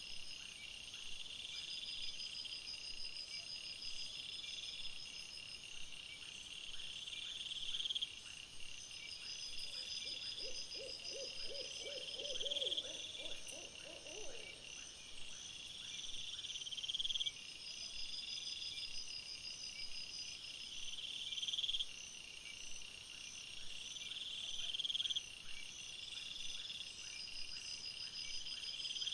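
Night insect chorus of crickets trilling steadily, high-pitched and in repeating pulsing stretches. A little past a third of the way through, a lower animal call of rapid pulses lasts about four seconds.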